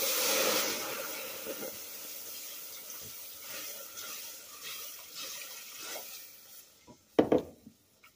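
Water poured into a hot stainless steel pot of browned flour and olive oil, hissing loudly as it hits the pan and fading over several seconds while the mixture is stirred. A couple of sharp knocks near the end.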